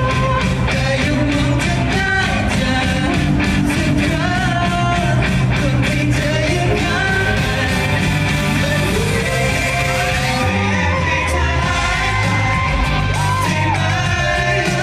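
Loud pop-rock music with a male voice singing over it; a rising sweep about nine seconds in, after which the beat shifts.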